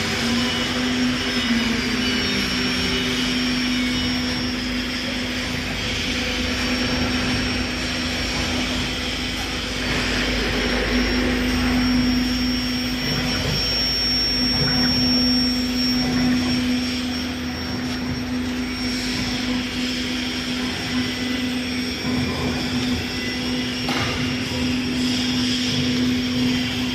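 CNC wood router running, its spindle giving a steady tone over a rushing machine noise.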